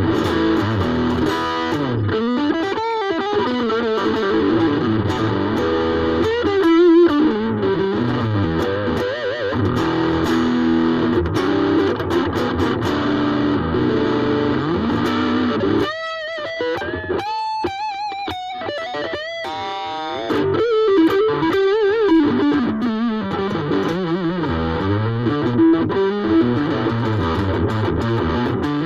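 Ibanez AXS42 electric guitar rewired with vintage solid-core wire, played through an amp: a continuous run of chords and riffs, with bent, wavering lead notes a little quieter about halfway through. The tone is bright and crisp.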